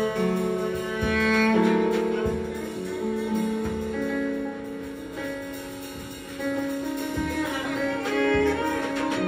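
Long, held and sliding bowed notes from an ajaeng (Korean bowed zither), with scattered drum-kit hits and cymbal strokes.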